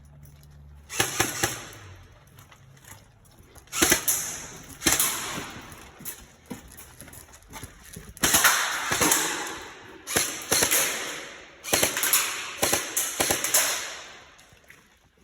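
Airsoft guns firing in short bursts of rapid shots, repeated several times, with lulls between bursts.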